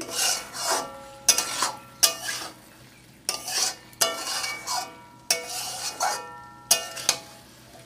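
Metal spatula stirring and scraping potatoes and drumstick pieces through thick frying masala in a metal kadhai, with about ten quick strokes. The pan rings briefly with each scrape.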